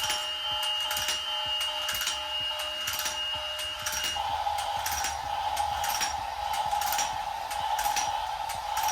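Battery-powered toy domino train running: a small electric motor and gears whirring steadily, with regular clicks as it drops dominoes one by one. A faint high whine in the motor sound stops about four seconds in.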